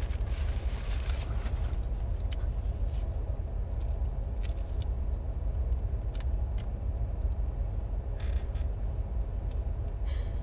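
A car's steady low running rumble heard from inside the cabin, with a few faint clicks and a brief rustle about eight seconds in.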